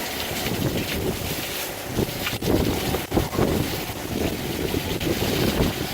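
Wind gusting across the microphone, a low, uneven rushing noise that swells and drops.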